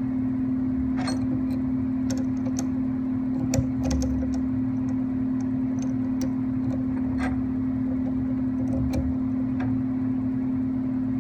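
A steady hum with scattered light metallic clicks and taps, as small hand tools work the gib adjusting screws on a 7x10 mini lathe's carriage.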